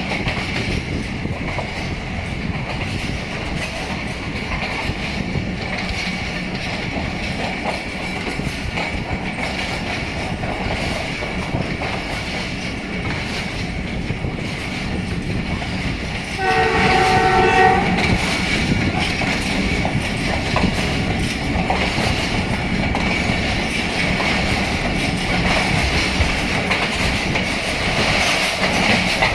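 Passenger train running with a steady rumble and clickety-clack of the wheels on the track. About two-thirds of the way through, the ZCU-20 diesel locomotive's horn sounds one multi-tone blast lasting about a second and a half.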